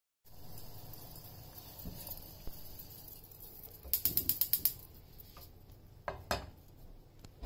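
A quick run of about eight sharp mechanical clicks, then two short knocks, over a steady background hiss.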